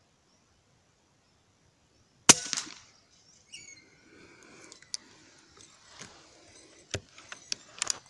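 A single shot from a P15 compressed-air rifle about two seconds in: a sharp crack with a brief ringing tail. Faint rustling and a few sharp clicks follow.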